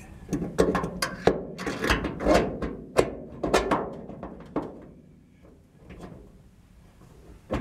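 Irregular clicks, taps and knocks of metal windshield-wiper pivot hardware (a chrome nut and washer) being worked by hand into the cowl of a 1949 GMC pickup's cab. They come thick for about five seconds, then die away to a few faint taps.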